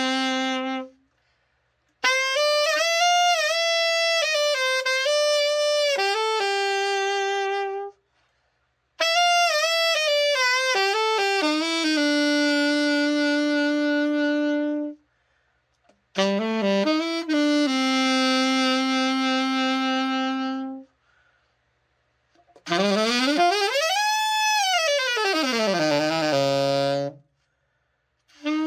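Yamaha YAS-62 alto saxophone played as a post-overhaul play test of its tone, intonation and response. There are short phrases of held and moving notes with brief silences between them, and near the end a fast scale up and back down that settles on a low note.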